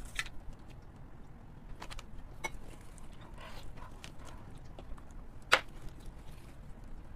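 Gloved hands pulling apart a braised sheep's head in sauce: wet tearing and squelching of meat with scattered clicks, and one sharp crack about five and a half seconds in.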